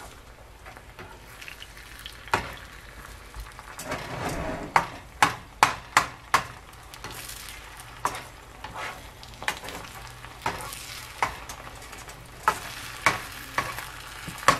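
Red slotted spatula scraping and tapping against a small nonstick frying pan while scrambled eggs cook underneath with a faint frying hiss. The sharp taps come irregularly, bunched about five seconds in and again near the end.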